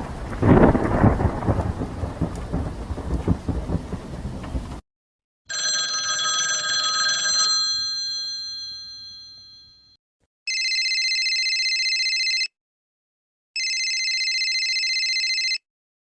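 Three sound effects in a row. First a thunderclap with a rumbling, rain-like hiss. Then a bell-like ring that fades away over a few seconds. Last, a telephone ringing twice, each ring about two seconds long.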